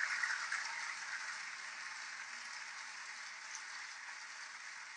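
Studio audience applauding, the clapping dying down over the first couple of seconds and then going on more softly.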